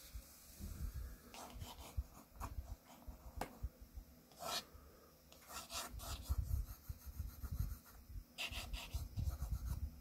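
Pencil sketching on drawing paper: short, irregular scratching strokes of the graphite on the paper, over low rumbling handling noise from the hand and sheet.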